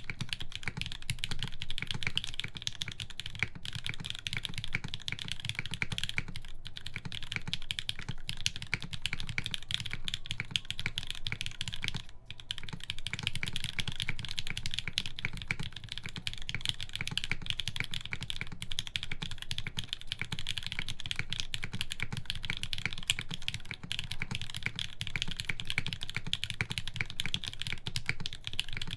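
Continuous typing on a TGR x GAF 910 mechanical keyboard with lubed Gateron Hippo switches on a full aluminum plate: a dense, steady run of keystroke clacks, with a brief pause about twelve seconds in.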